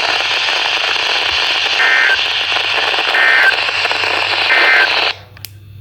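Weather radio broadcast static with three short two-tone digital data bursts, about 1.4 s apart: the SAME end-of-message code that closes an emergency alert. Near the end the signal drops out suddenly to a faint hum.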